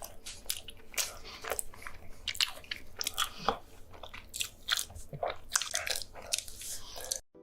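Mukbang eating close to the microphone: crunchy bites and chewing, with sharp crackles coming several times a second in an uneven rhythm. The sound cuts off suddenly near the end.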